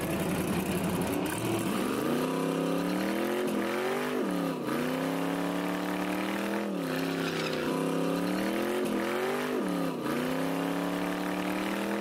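Drag car engine revving hard during a burnout on slicks. Its pitch climbs, falls back sharply, and climbs again several times at a steady loud level.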